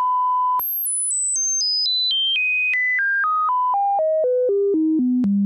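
Broadcast line-up test signal on a satellite audio feed. A steady reference tone is held for about half a second, then pure tones step down in pitch about four times a second, from a very high whistle to a low hum.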